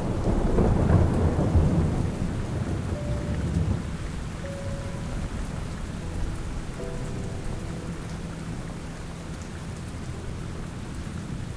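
Steady rain, with a long low roll of thunder that fades away over the first few seconds.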